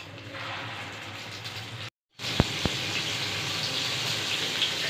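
Chicken kababs sizzling as they shallow-fry in hot oil in a steel pan, a steady hiss that grows louder after a brief dropout to silence about two seconds in. Two sharp clicks come just after the dropout.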